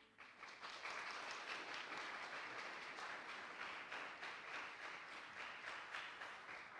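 Congregation applauding after an organ piece, starting right after the music ends and fading out at the end.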